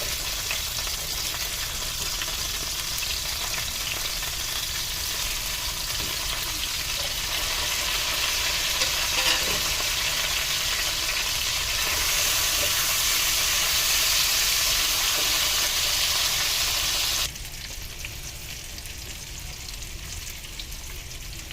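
Lamb chops with freshly added potatoes and carrots sizzling in hot oil and butter in a pan. The sizzle grows a little louder toward the middle, then drops suddenly to a quieter sizzle about four seconds before the end.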